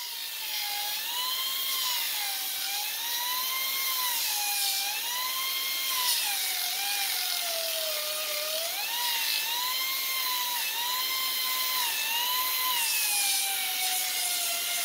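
Pneumatic 1-inch belt sander running against the edge of a pine board: a steady whine over hissing air, its pitch dipping and recovering again and again as the belt is pressed into the wood and eased off.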